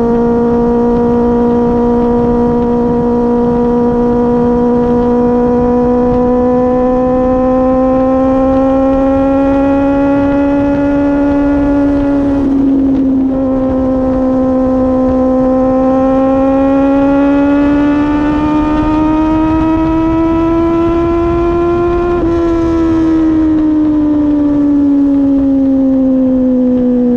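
Kawasaki Z800's inline-four engine at highway speed under throttle: a strong, steady engine note that climbs slowly, breaks and dips briefly about halfway through, climbs again, then falls steadily over the last few seconds as the throttle comes off. Wind rush underneath.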